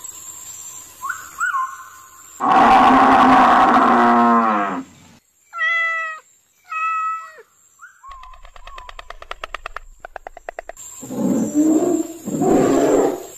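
A run of separate animal calls. A loud, drawn-out call comes about two and a half seconds in and falls in pitch at its end. A domestic cat then meows twice, a fast pulsing rattle follows, and a bear growls near the end.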